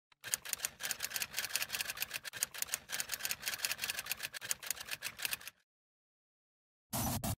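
Typewriter sound effect: a rapid run of key clicks lasting about five seconds, then a brief burst of noise near the end.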